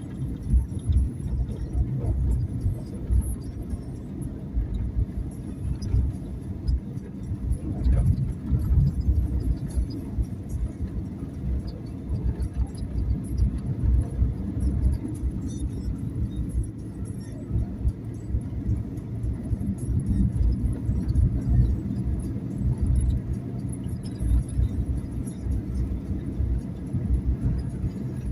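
Low rumble of a car driving on the road, heard from inside the cabin, rising and falling unevenly.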